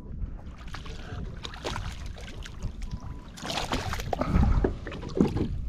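Handling noises aboard a fishing kayak: scattered knocks and clicks, with a louder rough burst about three and a half seconds in, over a low wind rumble on the microphone.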